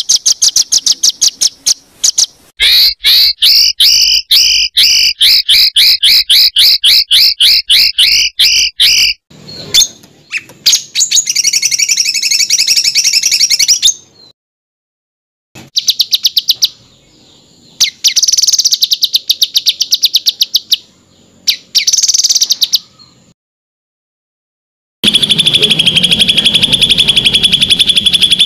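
Songbirds singing fast, dense 'tembakan' phrases: rapid strings of sharp repeated notes, about five a second in the longest run, spliced from several recordings with abrupt cuts and two short silences between them.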